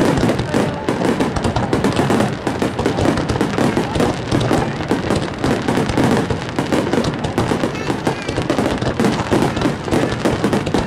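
Fireworks display in a rapid barrage: many shells bursting in quick, overlapping succession with constant crackling and no pauses between the bangs.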